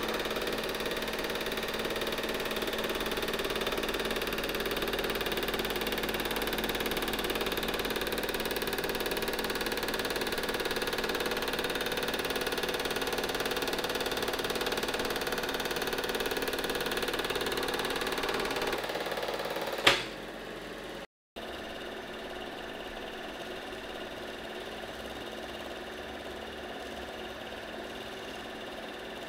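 Bauer T 141 Sound Super 8 projector running steadily, its motor and film transport making a continuous mechanical whirr. A sharp click comes about twenty seconds in, after which the projector runs on more quietly.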